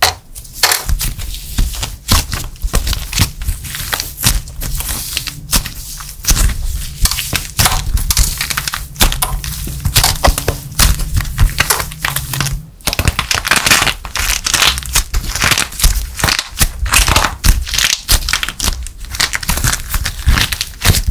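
Dried plaster clay crushed and torn apart by hand, a dense run of crunching and crackling as the hardened clay and its broken crust crumble, with a brief pause just past halfway.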